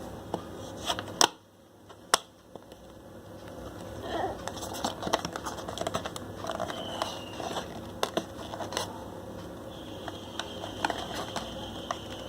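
Small retail package being opened by hand: scattered clicks, taps and light rustling of cardboard and plastic, with two sharp clicks about one and two seconds in.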